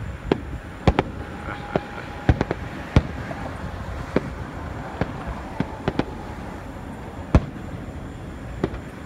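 Aerial firework shells bursting: an irregular run of about a dozen sharp bangs, some in quick pairs, the loudest about seven seconds in.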